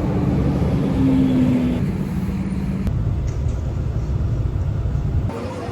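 Steady low rumble of a running vehicle, with a faint engine hum in the first couple of seconds; the sound changes abruptly near the end.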